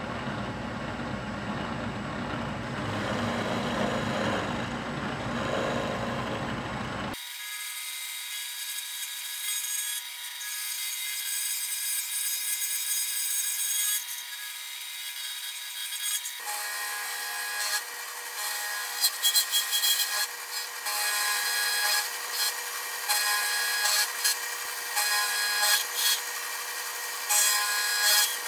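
An end mill on a milling machine cutting flats into a round part, a steady scraping cutting noise with steady whine tones from the machine. About seven seconds in the sound changes abruptly to a thinner, higher one. From a little past halfway, louder irregular scraping peaks come in as the cutter bites.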